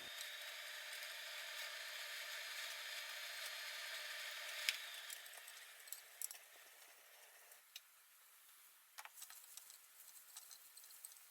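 Food sizzling in a frying pan. The sizzling dies away about halfway through, with a sharp click near the middle and a few light taps and clicks after it.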